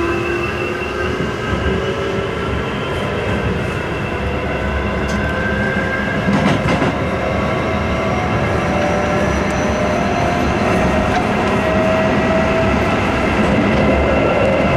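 Keisei 3700-series electric train heard from inside the car as it accelerates away from a station: the traction motors whine in several tones that rise slowly in pitch, over the steady rumble of wheels on rail, with a few clicks around the middle.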